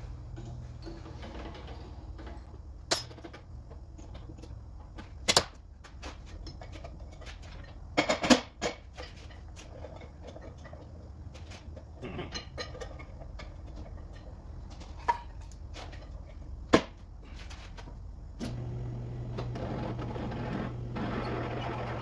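Sharp metal clanks and knocks of parts and tools being handled at a steel bench vise. About three-quarters of the way through, a drill press motor starts and runs with a steady hum.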